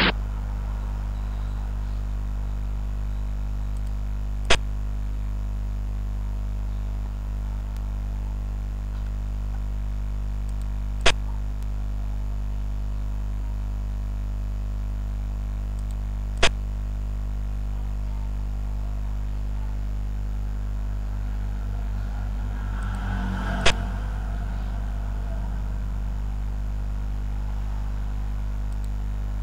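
Sharp click of a xiangqi piece being set down in a game-replay program, five times, several seconds apart, over a steady low hum.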